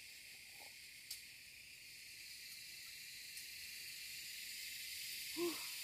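Steady high-pitched insect chorus, slowly growing louder, with a faint click about a second in and a brief voice sound near the end.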